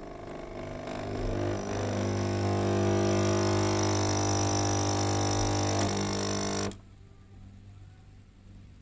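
Nespresso capsule machine's pump buzzing steadily as it brews, a low hum with many overtones, cutting off abruptly about two-thirds of the way through.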